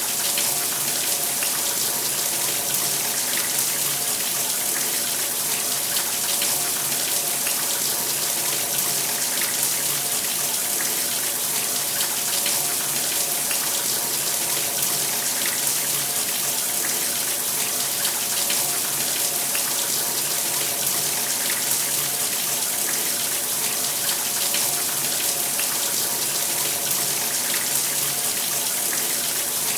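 Shower running steadily, a spray of water falling and splashing with an even hiss.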